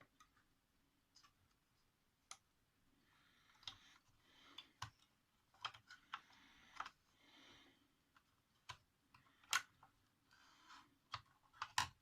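Faint clicks and light knocks of plastic clock-radio parts being handled, with a few short stretches of soft rubbing or scraping in between.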